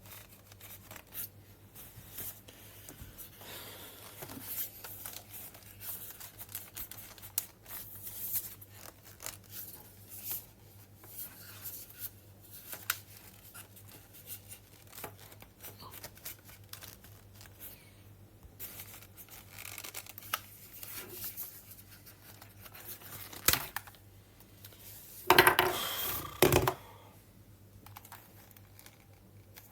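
Handling noise: scattered rustling, crinkling and tearing of packaging, with sharp clicks throughout and a louder ragged tearing sound about 25 seconds in.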